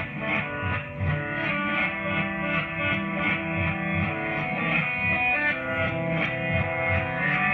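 Guitar music played through a pair of Klipsch Jubilee horn loudspeakers fitted with Celestion Axi2050 compression drivers and Beyma TPL200 tweeters, heard in the room.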